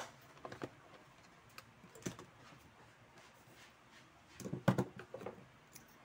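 Small hand tools and fan-switch parts handled on a workbench: scattered light clicks and knocks, with a quick cluster of louder knocks about four and a half seconds in.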